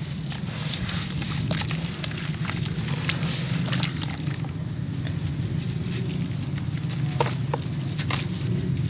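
Hands crumbling and squeezing damp sand-cement lumps into a tub of muddy water: crumbs sifting and dropping into the water, with short sharp clicks and splashes as the hands stir and lift a dripping lump. The sand-cement is wet from the rainy season.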